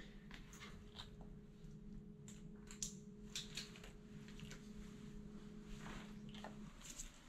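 Faint scattered clicks and handling noises of a retractable dog leash being clipped onto a collar, over a low steady hum that stops shortly before the end.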